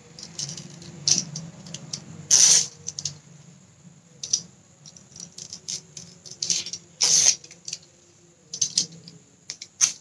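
Young coconut leaf being cut and trimmed with a small blade: scattered short slicing and scraping sounds with leaf rustle, two longer, louder cuts about two and a half and seven seconds in.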